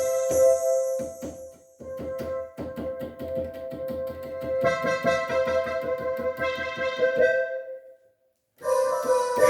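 Yamaha PSR-530 electronic keyboard playing one of its built-in voices: held notes with quick repeated strikes, stopping about eight seconds in, then a new sound starting after a short pause near the end.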